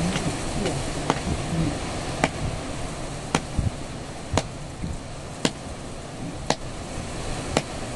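Sharp knocks about once a second, evenly spaced, over a steady rushing noise.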